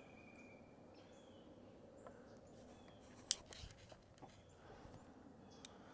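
Quiet outdoor background with faint, distant bird calls, and a single sharp click a little over three seconds in.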